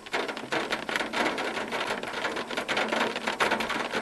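Rain falling on a car's roof and windshield, heard from inside the car: a dense, continuous crackle of countless drop impacts.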